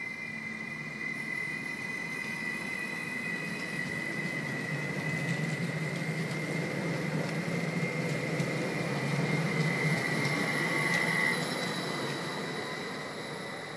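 Stadler FLIRT electric multiple unit running past, its rumble building and then fading toward the end, with a high steady whine throughout.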